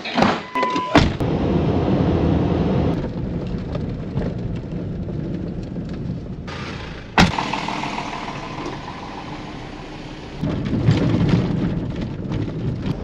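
A car door handle clicks and the door opens, with a short beep, then a ute's engine and road noise heard steadily inside the cab as it drives along a dirt farm track. A sharp knock comes about seven seconds in, and the rumble grows louder near the end.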